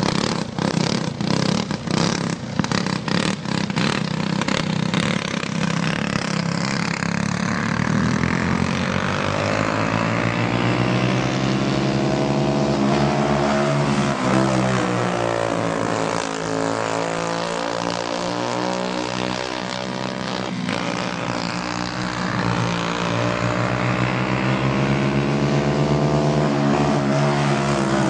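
Several racing karts powered by Briggs & Stratton Animal single-cylinder four-stroke engines running at race speed, choppy for the first few seconds, then a steady engine drone whose pitch rises and falls as the karts accelerate and lift off.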